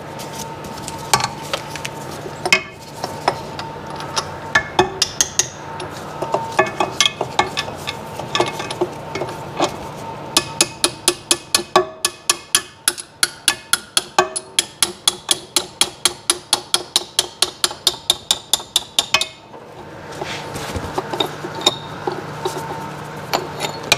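Metal tapping on a Sea-Doo 951 DI piston's wrist pin, driving it out so the piston comes off the connecting rod. After scattered clicks and scrapes, the tapping settles about ten seconds in into an even run of quick taps, about four or five a second, which stops a few seconds before the end.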